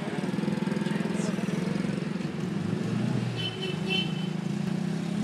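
Street traffic heard from inside a moving car: vehicle engines running with a fast, even pulsing, a motor-scooter among them. Two short high-pitched chirps come about three and a half seconds in.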